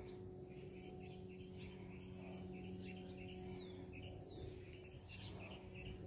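Birds calling: a run of faint chirps, then two louder, high, quick downward chirps about a second apart, over a faint steady hum.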